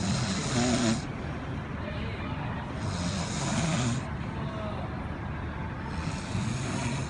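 A man snoring in his sleep: three snores, each about a second long and about three seconds apart, over a steady low background rumble.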